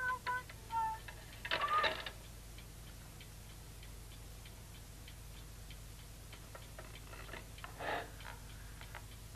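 A clock ticking steadily in a quiet room. A few short pitched notes sound in the first second, a louder brief sound comes about two seconds in, and another comes near the end.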